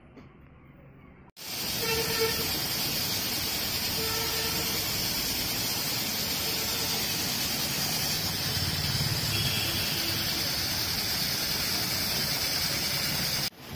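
Steady hiss of car-wash water spray, starting suddenly about a second and a half in and holding evenly until it cuts off just before the end.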